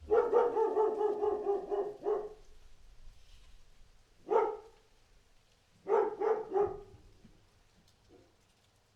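A dog barking: a long, wavering run of barking lasting about two seconds, then a single bark about four seconds in, then three quick barks in a row about six seconds in.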